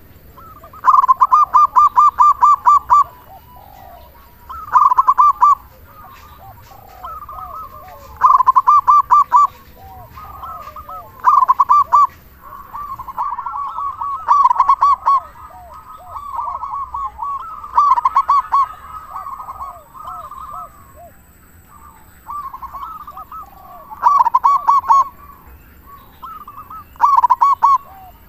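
Zebra dove (perkutut) cooing: loud bouts of rapid, evenly spaced notes about a second or two long, repeated every few seconds, with softer, lower coos in between.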